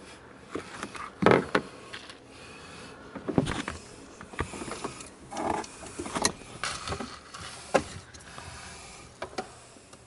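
Hands working a wire connector and multimeter test leads among the wiring at a refrigerator's evaporator coil. Irregular clicks, rustles and small knocks, with a few sharper snaps scattered through.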